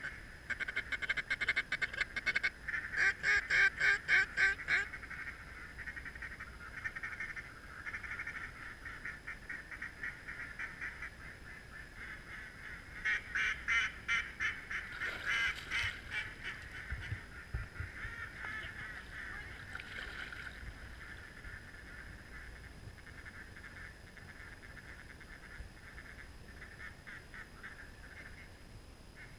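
Mallard-style quacking in long, rapid runs, loudest in the first few seconds and again about halfway through, then softer and more scattered.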